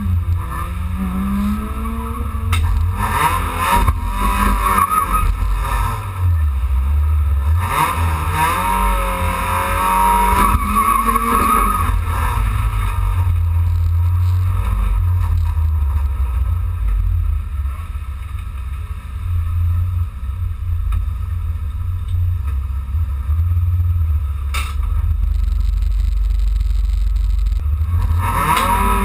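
Dacia Logan Cup rallycross car's engine heard from inside the cabin, running on the start grid: a steady low idle, revved up and back down several times, about a second in, around ten seconds in and again at the end.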